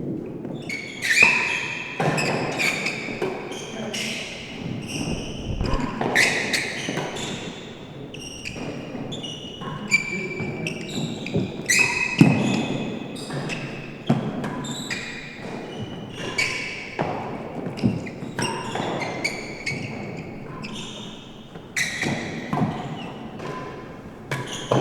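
A real tennis rally: the hard ball knocking sharply off rackets, the court's walls and floor in quick irregular succession, many knocks ringing briefly.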